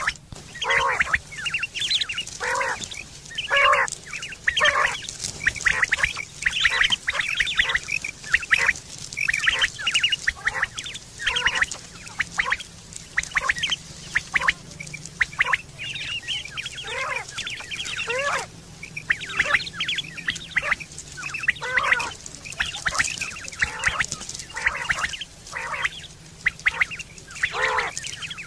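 Common quail calling: short, pitched calls repeated rapidly, about two or three a second, without a break.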